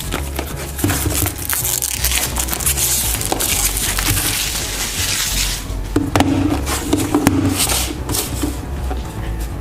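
A knife cutting open a packaged product box: blade scraping and crackling through tape and cardboard with small clicks and handling knocks, heaviest in the first half. Background music with a steady low line plays underneath.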